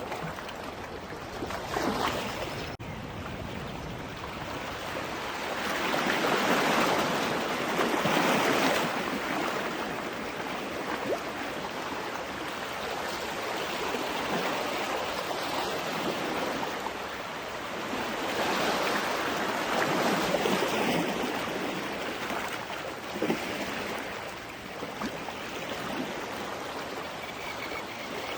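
Ocean surf washing onto a beach: a steady rushing hiss that swells into two bigger breaking waves, one around six to nine seconds in and another around eighteen to twenty-one seconds in, easing off between them.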